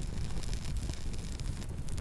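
Campfire burning: scattered small crackles and pops over a steady low rumble.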